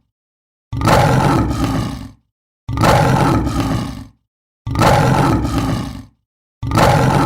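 Lion roar sound effect: the same deep, rasping roar repeated about every two seconds with dead silence between, four times.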